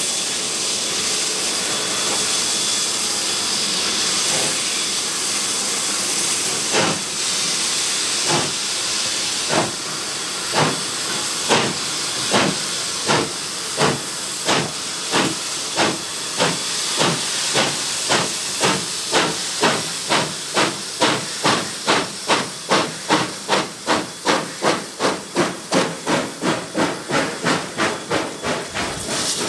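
Steam locomotives R766 and 5917 double-heading a train. A steady hiss of steam comes first, then exhaust chuffs begin about seven seconds in. The chuffs come faster and louder as the engines draw near, reaching two to three beats a second near the end.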